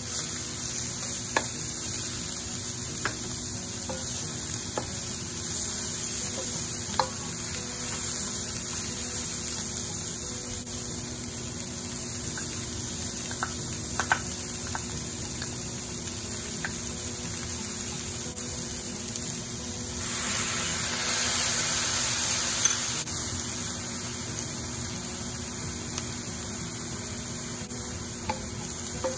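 Shredded cabbage, carrots, green beans and pork sizzling in a nonstick wok as a wooden spatula stirs them, with occasional sharp clicks of the spatula against the pan. The sizzle swells for a few seconds about two-thirds of the way through.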